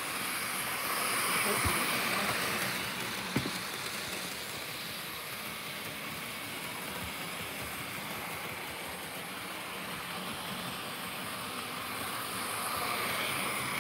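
Bachmann Toby model locomotive running on the track: a steady whir of its small electric motor and wheels, growing louder twice as it passes close by, with a couple of sharp clicks in the first few seconds.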